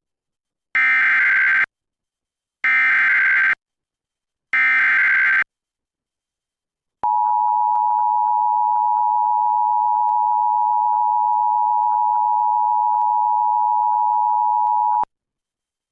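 Emergency Alert System SAME header: three bursts of digital data tones about a second long and about two seconds apart, then the two-tone attention signal held steady for about eight seconds and cut off sharply. It announces an urgent weather alert, here a severe thunderstorm warning.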